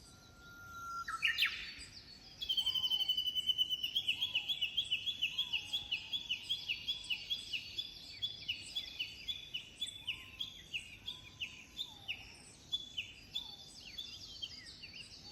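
Birdsong: a songbird gives a long series of repeated high, down-slurred notes, about four a second, that slowly space out and fade. A rising whistle comes about a second in, and fainter, lower whistled calls sound now and then underneath.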